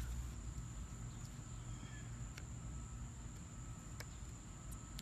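Outdoor ambience: a steady, high-pitched insect drone over a faint low rumble, with a couple of brief bird chirps and a few faint clicks.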